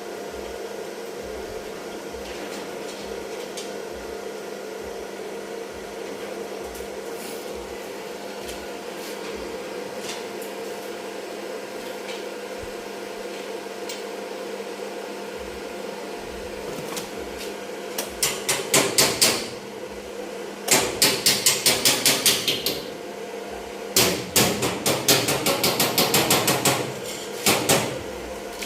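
Hammer blows on metal during car body repair, coming in quick runs of about five strikes a second, starting about eighteen seconds in. A steady machine hum runs underneath.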